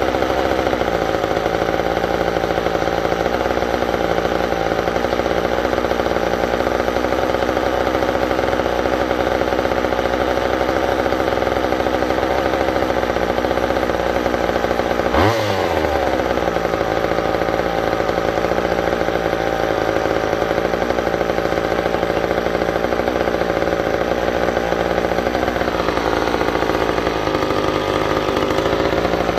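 McCulloch chainsaw's two-stroke engine running steadily, with one brief sweep in pitch about halfway through, while its carburettor is being tuned on its first run.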